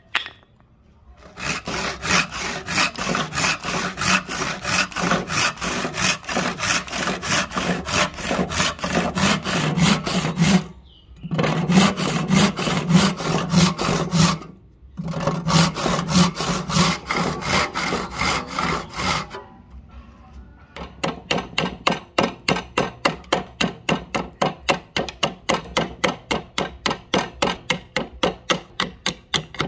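Handsaw cutting cross kerfs into a black and white ebony blank, in quick steady rasping strokes with two brief pauses. About twenty seconds in, it gives way to a large chopping knife knocking out the waste between the kerfs in sharp, regular blows, about four a second.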